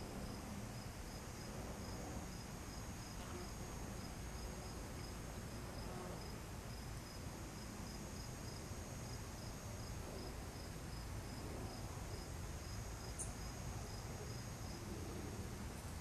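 Insects chirping in a steady chorus: one high, continuous trill and a second high tone pulsing about four times a second, over a low rumble. A brief high blip comes near the end.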